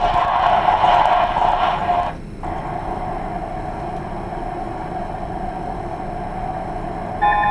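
A Volvo heavy truck driving, heard as a video soundtrack played through a loudspeaker, so it sounds thin and lacks bass. The level drops suddenly about two seconds in, and guitar music begins near the end.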